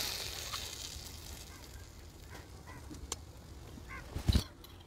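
Small omelette frying in a tiny metal pan: a soft sizzle that fades over the first second or so, a few light clicks of a metal spatula against the pan, and a louder knock with a thud near the end as the spatula works under the omelette to turn it.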